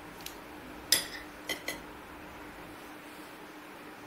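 A metal spoon clinking against a glass bowl of chopped salad vegetables, about four sharp clinks, the loudest about a second in.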